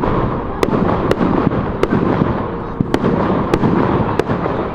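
Fireworks going off: a dense, continuous crackle with about six sharp bangs spread through it.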